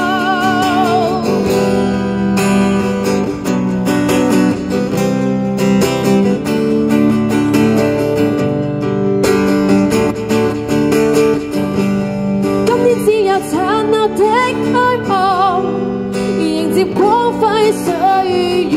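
Guitar strummed through an instrumental break in a pop song, following a long sung note held with vibrato for the first second. About two-thirds of the way through, a wordless vocal melody comes in over the strumming.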